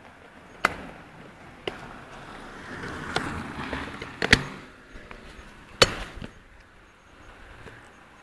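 Footsteps in sandals: five sharp slaps, roughly a second or so apart, with a brief rustle around the middle.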